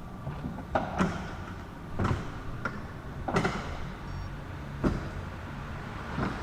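A series of irregular knocks and clunks, roughly a second apart, over a low steady hum.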